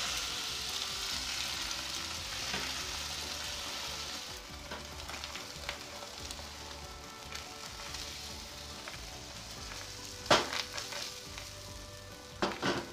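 Beaten egg sizzling in a hot non-stick frying pan over potato slices frying in margarine, the sizzle loudest for the first few seconds as the egg goes in, then settling to a steadier, quieter hiss. A few sharp knocks about ten seconds in and again near the end.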